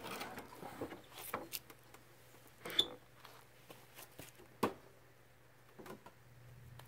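Plastic printer housing being handled and taken off: scattered clicks and rustling, then a few sharp knocks, the loudest about three and about four and a half seconds in.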